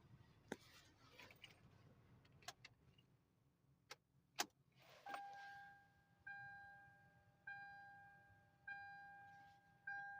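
Faint, scattered clicks and knocks, then a car's electronic warning chime dinging steadily, one decaying ding about every 1.2 seconds, starting about halfway through.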